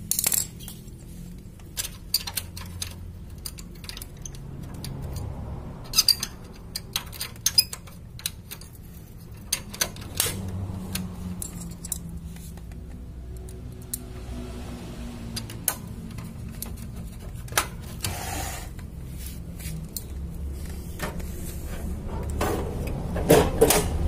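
Scattered clicks and knocks of hands handling the open side door and paper-feed guides of a Canon iR 5020/6020 photocopier. A cluster of heavier knocks near the end comes as the side door is pushed shut. A low steady hum runs underneath.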